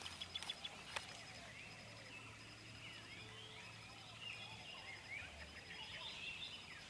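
Several small birds chirping and calling, faint, with many short overlapping notes that rise and fall. A few sharp clicks sound in the first second.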